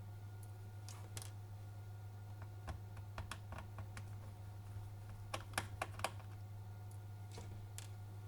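Small scattered clicks and taps of a screwdriver working screws out of a laptop's top case, with a little cluster of sharper clicks past the middle, over a steady low hum.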